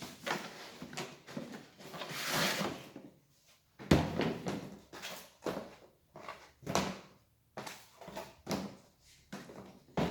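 Hard objects being handled: a rustling slide about two seconds in, a sharp knock just before four seconds, then a string of shorter knocks and clicks.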